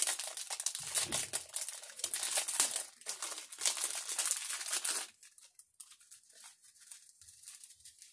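Thin clear plastic bag of diamond-painting drills crinkling and rustling as hands work it open. The crinkling stops about five seconds in, leaving only faint light ticks and rustles.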